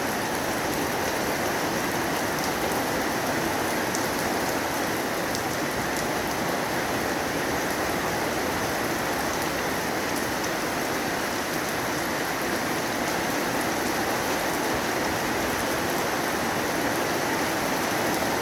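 Steady rainy-season rain falling, an even hiss with a few faint drop ticks in the first few seconds.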